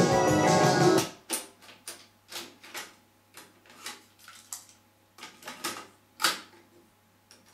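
Music cuts off about a second in, followed by a string of irregular mechanical clicks and clunks over a faint steady hum: the Akai CS-M3 cassette deck's controls and cassette being worked between songs.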